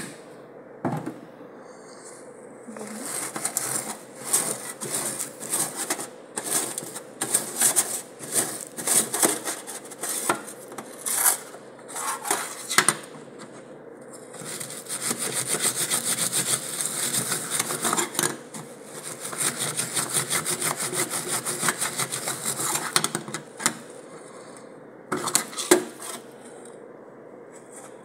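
Steel wool scourer scrubbing a stainless steel sink around the drain, scouring off black grime. First comes a series of separate rasping strokes, then two long runs of fast, continuous scrubbing about halfway through, and a few sharp knocks near the end.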